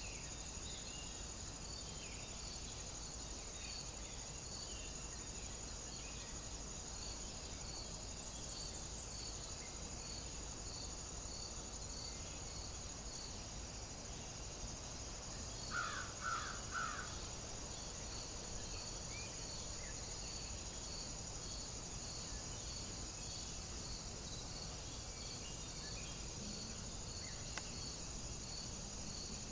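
Steady insect chorus: a continuous high buzz with a regular chirp repeating a little faster than once a second. About halfway through, a crow caws three or four times in quick succession.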